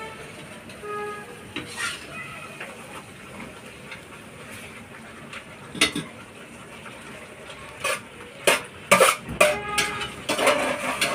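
Metal spoon scraping and clanking against a metal kadhai as paneer curry is stirred over a wood fire. There are scattered sharp metal-on-metal clanks, and they come thickest and loudest in the last few seconds.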